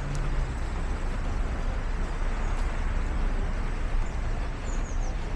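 City street traffic: a steady rumble of passing vehicles and their engines.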